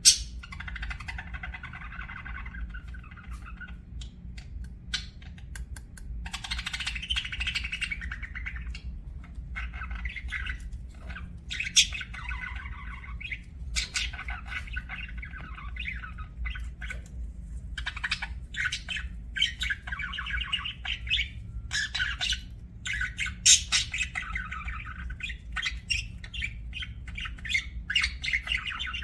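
Budgerigars chattering and chirping continuously, with warbling runs broken by sharp squawks and clicks, over a steady low hum.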